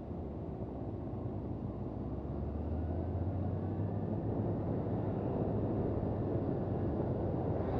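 Honda CB400 Super Bold'or's inline-four engine running while riding, its pitch and level rising gradually as the bike gathers speed.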